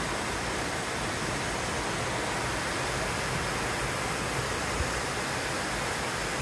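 Steady rushing of a waterfall: an even, unbroken wash of falling water.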